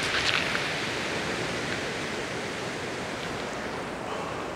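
Steady rushing of sea surf breaking on the shore. At the very start, a brief high swish as a beachcasting rod is cast and the line runs off the reel.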